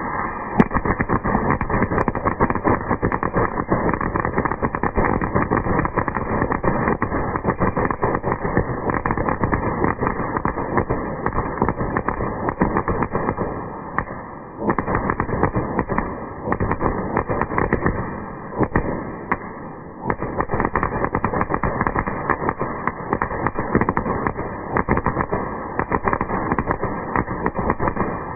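Firework crackling in a dense, continuous stream of rapid pops, with brief lulls about fourteen and twenty seconds in.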